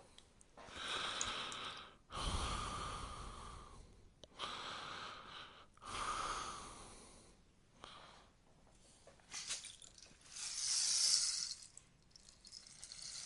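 Rainstick tipped over again and again, its filling cascading down the tube in a series of swelling rain-like rushes of one to two seconds each. There is a quieter stretch after the middle, and a last, brighter rush near the end.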